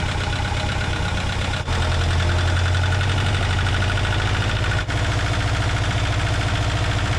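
Small inboard marine engine running close up in its compartment with a steady knocking rhythm. It gets louder a little under two seconds in as it is given more throttle, and stays at that higher level.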